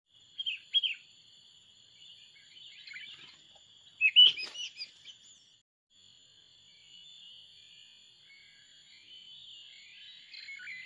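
Sooty-headed bulbul chirping calls: two short notes near the start, a louder burst of chirps about four seconds in, and more calls near the end, over a steady high-pitched drone.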